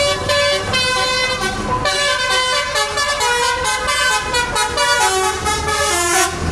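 Multi-tone telolet bus horn playing a tune in quickly changing notes, over the low rumble of the bus engine.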